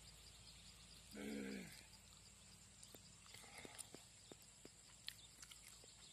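Near silence with faint scattered ticks. A little over a second in comes one short call, about half a second long, that drops in pitch at its end.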